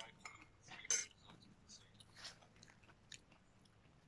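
A person chewing and crunching food, with scattered light clicks of chopsticks and a spoon against a bowl; the loudest click comes about a second in.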